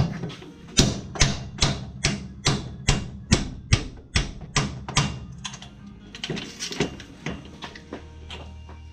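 Hammer blows on metal: about a dozen sharp, ringing strikes at a steady two or so a second, then a few lighter taps. Music plays faintly underneath.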